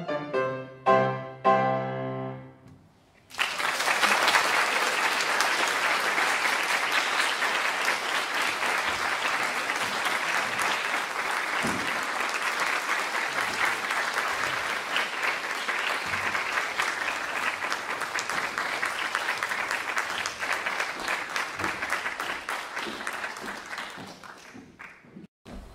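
Grand piano playing the last chords of a piece, then, after a brief hush, an audience applauding for about twenty seconds. The applause fades out near the end.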